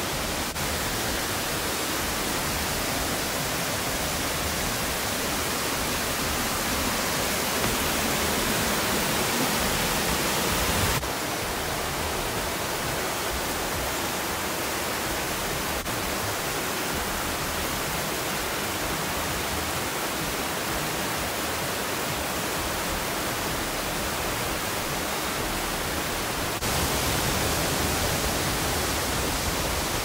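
Steady rushing of water in a mountain stream, an even hiss with no separate splashes or strokes. Its level drops abruptly about eleven seconds in and comes back up near the end.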